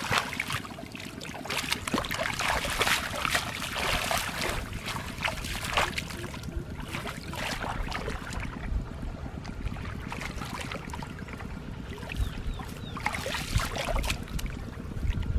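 Hands splashing and sloshing through shallow muddy water while wading and groping for fish, in irregular bursts that are busiest in the first few seconds and pick up again near the end.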